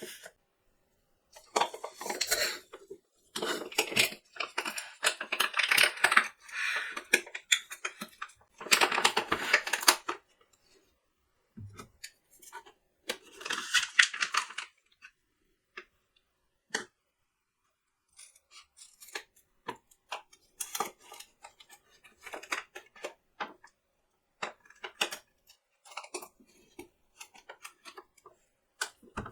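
Coffee packaging being handled and opened: long bursts of crinkling and rustling, then scattered light clicks and taps.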